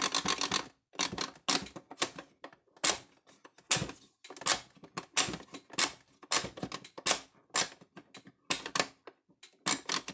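The stiff plastic slide switch on a Stafix X18i fence energizer is pushed back and forth, giving sharp irregular clicks about twice a second. It has just been sprayed with WD-40 to free it up.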